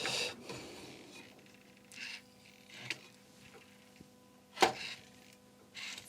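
Sony MDS-JE480 MiniDisc deck's disc-loading mechanism whirring briefly and then clicking faintly a few times as it tries and fails to eject the disc, with one sharp click about four and a half seconds in. The loading belt is worn and slipping.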